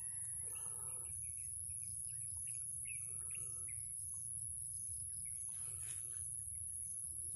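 Birds chirping in a run of short, quick, falling notes between about one and three and a half seconds in, over a steady high-pitched whine and a low rumble.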